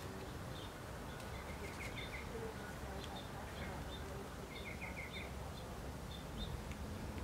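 Small birds chirping: short high chirps repeating every fraction of a second, with two brief trills, over a steady background hum of outdoor noise.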